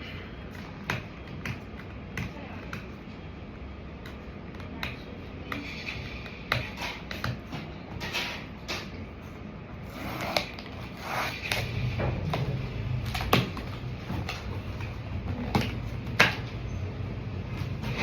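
Handling noises from unboxing a cardboard sneaker box: irregular clicks, taps and rustles of cardboard and packaging paper. A low steady hum joins in about two-thirds of the way through.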